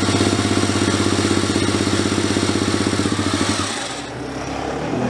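Racing motorcycle engine running on a roller starter just after firing up, with a fast, even pulsing beat. About three and a half seconds in the deep part of the note drops away and the sound eases briefly before building again.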